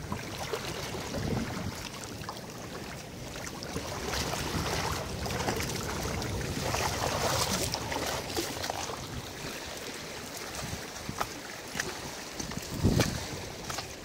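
Wind buffeting the microphone over small waves washing among shoreline boulders, with a single dull knock near the end.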